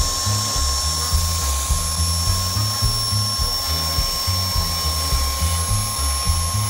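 Table saw running at speed with a steady whine, over background music with a steady bass line.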